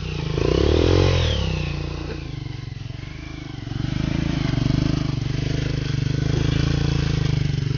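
Single-cylinder trail motorcycle engine revving up and back down once near the start, then running low before growing louder and steady about four seconds in as the bike pulls away on the dirt.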